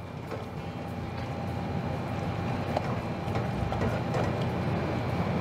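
A steady low rumble that slowly grows louder, under a few faint scrapes and taps of a silicone spatula stirring thick custard in a stainless steel double boiler.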